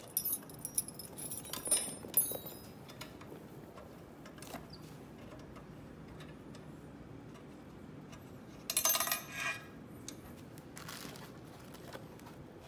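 Steel hex keys (Allen keys) and small screws clinking and jingling together in the hand, with a louder metallic clatter about nine seconds in and a shorter one near eleven seconds as the keys are laid down.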